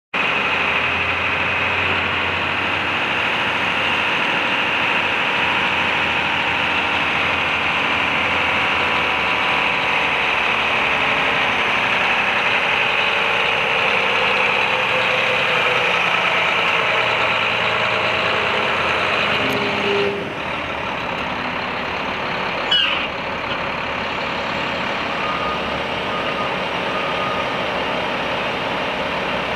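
Volvo A25F articulated dump truck's diesel engine running steadily as the truck drives up and raises its dump body. The level drops a little about two-thirds through, and a sudden short burst of sound comes shortly after.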